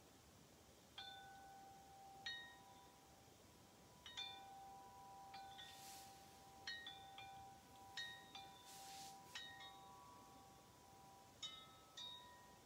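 Metal-tube wind chime ringing in the breeze: about a dozen irregular strikes, each leaving clear tones ringing on for a second or more.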